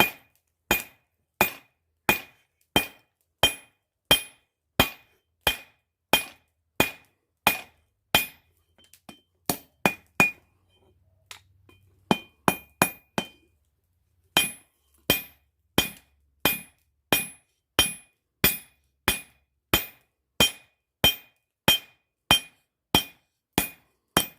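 Hammer blows on hot steel over an anvil, each strike with a short ringing ping, about three blows every two seconds. Partway through the steady blows give way to a few lighter, uneven taps, then the regular hammering resumes.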